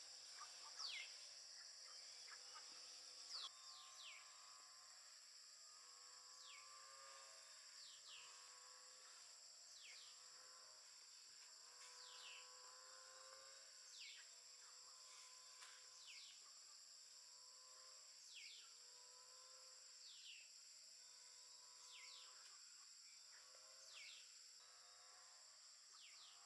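Steady high drone of insects with a bird repeating a short, sharply falling call about every two seconds; fainter wavering lower calls sound underneath from a few seconds in.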